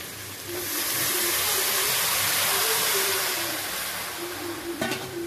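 Water poured into a hot kadai of sautéed vegetables, hissing and sizzling as it hits the pan. The hiss swells about half a second in and dies away over the next few seconds, with a single knock near the end.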